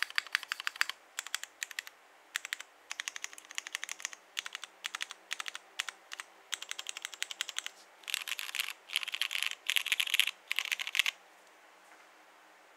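Typing on a Monokei x TGR Tomo mechanical keyboard with lubed and filmed Cherry MX Ultraglide Black linear switches, an aluminium plate and PBT keycaps. The keystrokes come in short bursts, with denser flurries late on, and stop about eleven seconds in.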